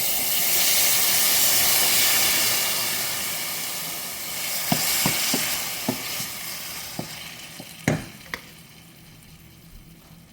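Drained canned tomatoes sizzling loudly in a hot frying pan with garlic, the sizzle slowly dying down. A spoon knocks against the pan as they are stirred, with two sharper knocks a little before the end.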